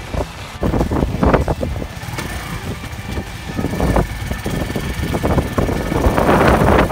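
Barako motorcycle engine running steadily while riding along the road, with uneven wind buffeting on the microphone.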